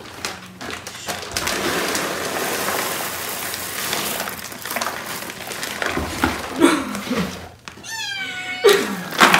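Cat litter pellets pouring from a bag into a cardboard box, a steady hiss lasting several seconds. Near the end a kitten meows once, in one long call that falls in pitch.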